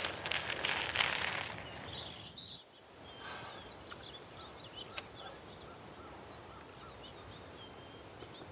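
Bicycle tyres crunching over a gravel track, cutting off suddenly about two and a half seconds in. Then comes a quiet outdoor background with small birds chirping now and then and a couple of faint clicks.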